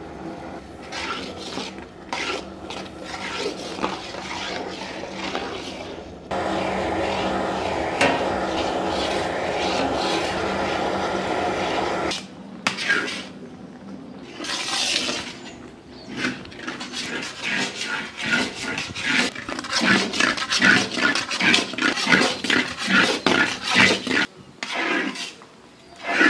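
Long metal ladle stirring and scraping thick beetroot and sugar paste around a heavy iron kadai, in quick repeated strokes of about two a second near the end. For about six seconds in the middle a steady hiss takes over.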